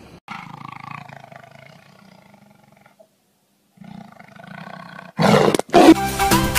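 Tiger roaring: a long call that falls in pitch, a short pause, then a second, shorter call. Loud electronic music comes in near the end.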